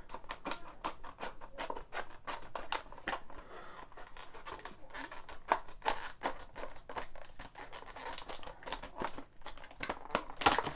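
Scissors cutting through the clear plastic blister pack of a diecast model, a run of short snips at about three a second, with a louder snip near the end.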